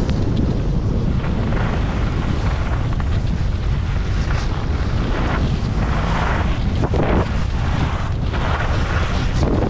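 Wind buffeting the microphone of a skier's camera during a downhill run, a steady low rumble. Over it, the hiss and scrape of skis on packed snow swells and fades with the turns.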